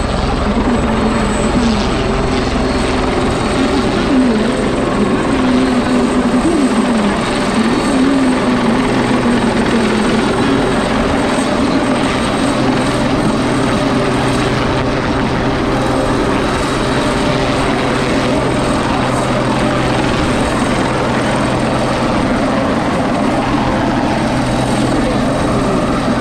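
Military helicopter hovering low overhead: a loud, steady beat of rotor blades and whine of turbines.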